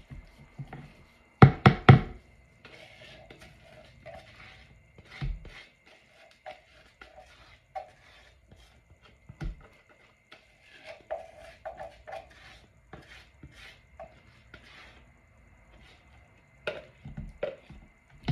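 A spatula stirring and scraping inside a plastic measuring jug while sodium hydroxide is mixed into frozen almond milk for soap lye, giving scattered knocks and clicks against the plastic. A few sharp knocks come about one and a half seconds in and again near the end.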